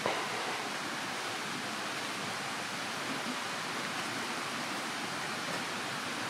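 Steady rushing of a small forest stream, an even hiss of water that does not change.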